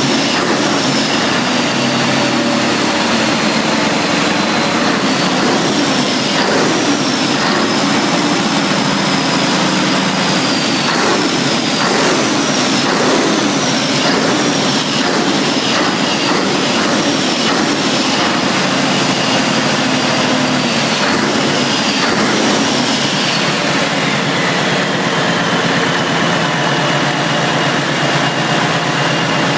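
Large engine running steadily, with a high whistle that repeatedly dips and rises in pitch, then settles to a lower steady whine near the end. A few sharp knocks come in the first half.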